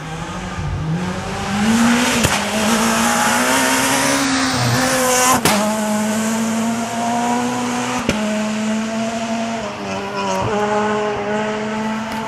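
Rally car engine held at high revs as the car comes along a gravel forest stage, climbing in pitch over the first two seconds. Several sharp cracks and small shifts in pitch mark gear changes, about 5.5, 8 and 10.5 seconds in.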